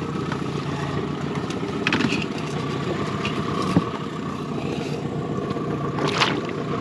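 Boat's outboard motor idling steadily, with a few brief knocks.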